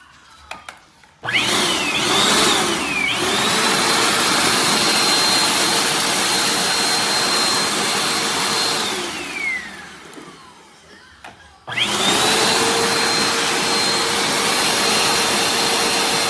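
Bissell CleanView Compact Turbo upright vacuum switched on about a second in, its motor whine climbing to a steady high pitch. It is switched off around nine seconds in, the whine falling away as the motor spins down. It is switched on again near the twelve-second mark and runs steadily.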